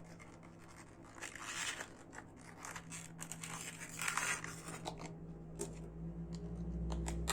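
Plastic packaging of a new laptop RAM module being crinkled and torn open by hand, in several short rustling bursts, with a few sharp clicks in the last two seconds.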